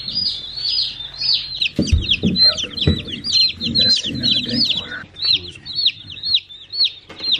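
A brood of baby chicks peeping constantly, many high arched peeps overlapping in quick succession. A couple of low thumps come about two and three seconds in.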